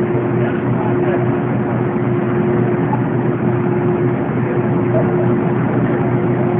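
Boat's engine running steadily: a loud, even rumble with a constant hum.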